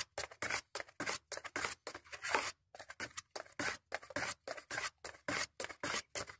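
Car body filler being mixed and worked on a mixing board with a spreader: quick, repeated scraping strokes, about four to five a second.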